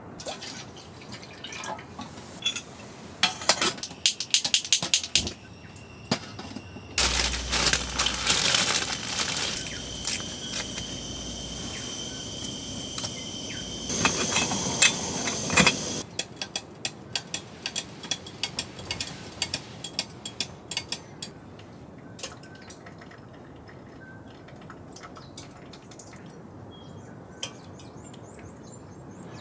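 Rain falling on the tent at night: drops hit the fabric in many irregular sharp ticks. Between about 7 and 16 seconds in, a louder, steadier rush of rain carries a faint high steady tone.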